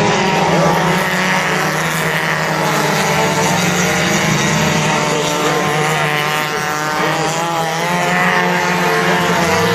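Engines of a pack of mini stock race cars, small four-cylinder compact cars, running at racing speed around an oval. Several engine notes overlap, rising and falling in pitch as the cars pass and lift through the turns.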